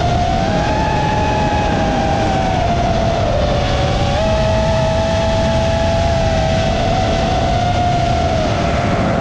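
FPV quadcopter's four EMAX 2207 1700KV brushless motors on 6S with Gemfan Hurricane propellers whining in flight, the pitch stepping up and down several times with the throttle, over a steady rushing noise.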